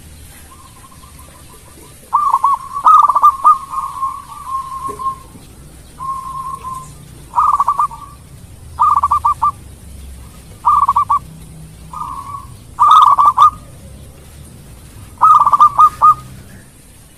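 Zebra dove (perkutut) singing: about eight short bursts of quick, stuttering coos, repeated every second or two, with one longer rolling phrase a couple of seconds in.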